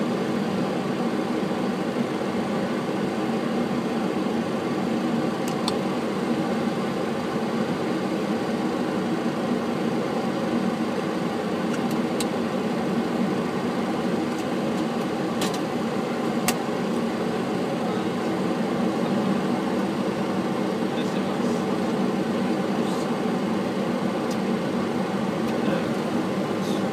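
Steady cockpit noise of a Boeing 737 creeping along the runway at low thrust: a constant engine and air-conditioning drone with no spool-up. A few sharp clicks sound over it.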